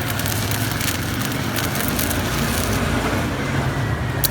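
Stick-welding arc from a Jasic ARC 200A inverter welder: a steady crackling, frying hiss over a low hum. The high crackle thins out near the end.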